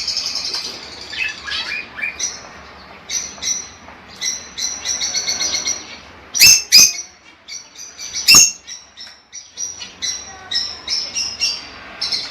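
Lovebirds chirping in a rapid run of short, high calls, with two loud, sharp shrieks about six and eight seconds in.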